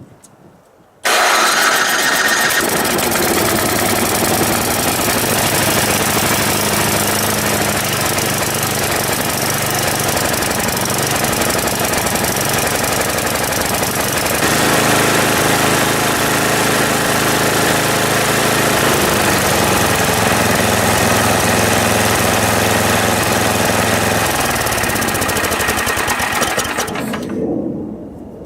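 Four-stroke snowblower engine catching suddenly about a second in and running loudly. It runs a little rough at first after sitting with stabilized fuel, and its note shifts about halfway through. The sound drops off near the end.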